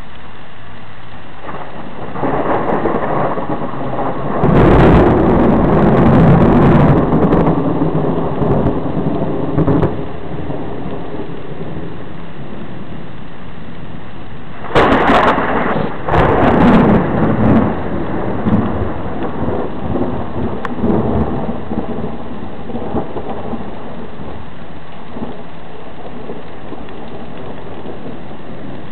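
Two peals of thunder over steady rain. The first rumbles in about two seconds in and rolls on for about eight seconds. The second breaks with a sudden crack about halfway through and rumbles away over the next several seconds.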